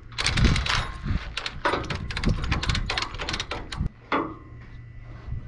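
Heavy steel chain clattering and rattling for nearly four seconds as it is hauled around a steel truck chassis rail, then a single short metallic knock about four seconds in.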